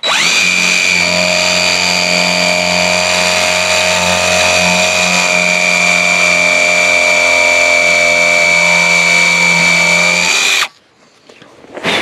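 Electric drill spinning a spade bit into a weathered wooden board. The motor whines steadily for about ten seconds, then stops abruptly. A brief sharp knock follows near the end.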